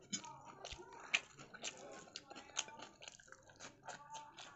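Faint eating sounds: chewing with small scattered clicks and smacks, and fingers sweeping the last rice across a plate.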